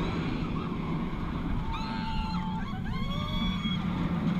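Bolliger & Mabillard inverted roller coaster train running at speed: steady wind rush and a low rumble from the train on the track. Riders scream about halfway through, in two stretches of a second or so each.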